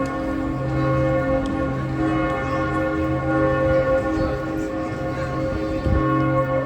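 Church bells ringing, their long humming tones overlapping and swelling in a slow, uneven pulse.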